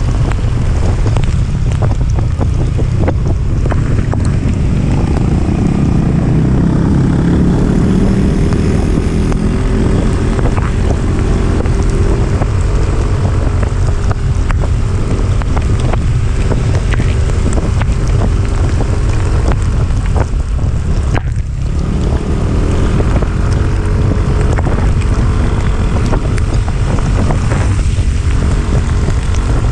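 Heavy wind buffeting on the microphone of a moving motorcycle, with the engine's hum rising and falling beneath it. The engine sound drops out briefly about two-thirds of the way through, then picks up again.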